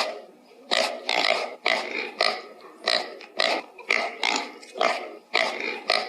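A pig grunting repeatedly in short, rough grunts, about two a second.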